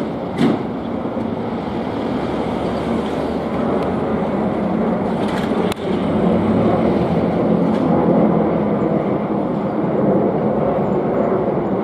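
Hankyu Kyoto Line electric train passing a level crossing: a steady rumble of wheels on rails, with two sharp clacks right at the start and another about halfway through.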